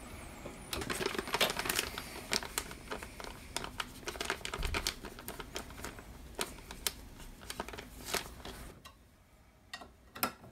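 A plastic bag of small screws crinkling, with the screws clinking inside, and light metal clicks as parts are handled. The rustling stops near the end, leaving a few sharp clicks of a hex key on bolts.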